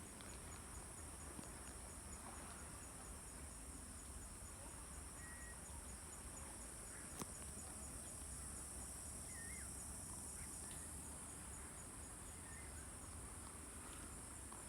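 Steady high-pitched chorus of forest insects, with one voice in it pulsing fast and evenly. A second, lower drone drops out about ten seconds in.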